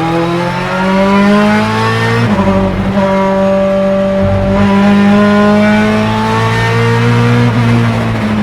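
Ferrari F430 GTC/GT2's 4.0-litre naturally aspirated V8 racing engine accelerating hard, its pitch climbing, dropping with a quick upshift of the sequential gearbox a little over two seconds in, then climbing again through the next gear for several seconds.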